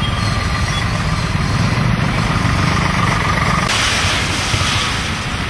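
Motorcycle and auto-rickshaw engines running in slow traffic as the vehicles drive through floodwater. About three and a half seconds in, a steady hiss of water spraying from the wheels joins the engine rumble.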